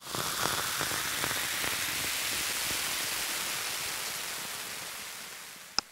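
A burst of static-like hiss that starts abruptly, with a few faint crackles early on, fades slowly over its last couple of seconds, and ends with two sharp clicks before cutting off.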